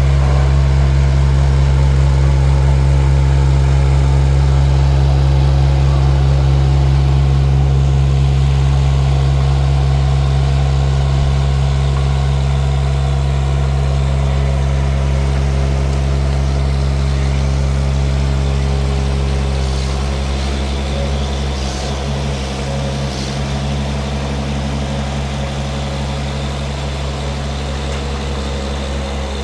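Mini excavator engine running steadily at a constant speed, its level falling slightly after about twenty seconds, with a few faint knocks around then.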